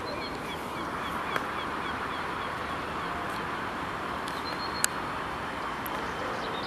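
Outdoor ambience: a steady hiss of traffic, with a small bird repeating short high chirps, about three a second, through the first half. Two sharp clicks cut through it, a faint one just over a second in and a louder one near five seconds.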